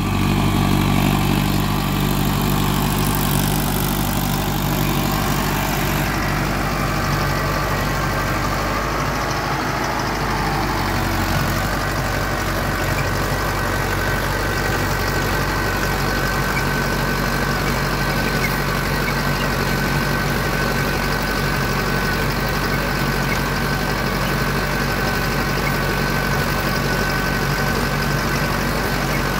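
Mahindra 555 DI Power Plus tractor's diesel engine running steadily under load while driving an 8 ft Sonalika rotavator through stubble ground at steady revs. About ten seconds in, a steady high whine joins the engine sound and holds.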